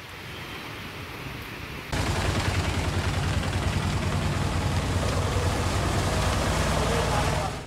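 Flooded street in rain: a steady rush of rain and water. About two seconds in it grows much louder, with a deep rumble as vehicles drive through the floodwater.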